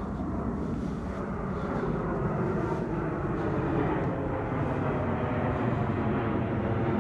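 Steady rumble of distant engine noise from traffic or aircraft, growing slowly louder.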